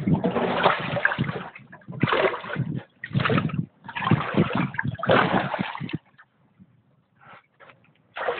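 Shallow water splashed and sloshed by hand in several loud bursts, stopping about six seconds in.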